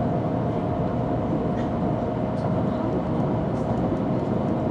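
Shinkansen bullet train running at speed, heard from inside the passenger cabin: a steady rumble of wheels and air noise with a constant mid-pitched hum.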